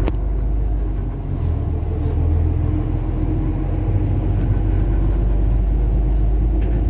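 City bus engine and running gear heard from inside the passenger cabin: a steady low rumble and drone.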